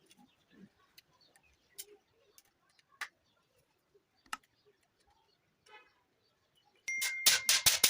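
A few scattered light taps and clicks, then, near the end, loud rapid rasping strokes from hand tool work on a saw, about four to five strokes a second, with a thin high squeal running through them.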